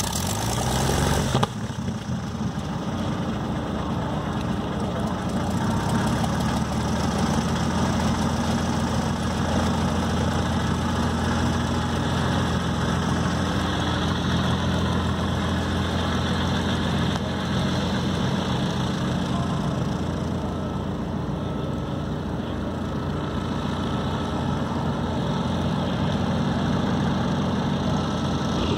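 Vintage single-engine propeller trainer plane's piston engine running steadily at low power while taxiing, a low drone with propeller and exhaust noise. A short rush of noise comes right at the start.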